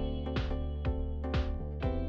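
Background music with a steady beat of about two beats a second over sustained chords.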